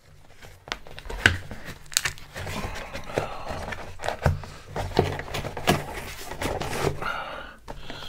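Close-miked crinkling with a string of sharp clicks and crackles over a low hum, from food or its packaging being handled and eaten.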